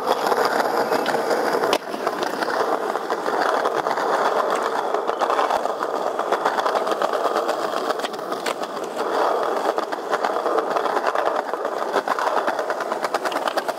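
Skateboard wheels rolling over stone paving slabs, a steady rumble with rapid clicks as the wheels cross the joints and cracks.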